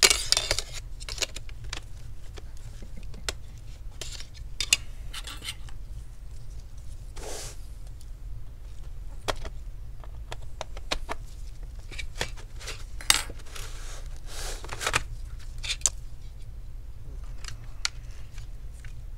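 Scattered clicks, taps and short scrapes of metal and plastic as a laptop's optical drive is pried up with tweezers and slid out of its bay.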